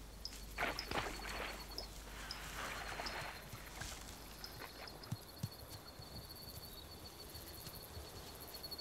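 Hippo cropping grass: a few rough tearing and rustling bursts in the first three seconds, over a faint, steady high insect trill. There are two soft low knocks a little after five seconds in.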